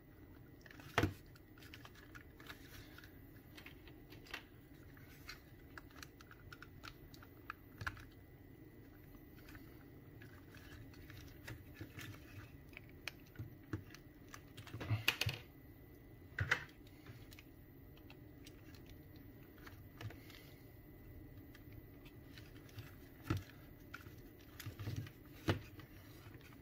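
Faint, scattered clicks, taps and scrapes of a JBL E65BTNC plastic earcup being handled and pried apart, with a handful of louder plastic clicks and knocks spread through.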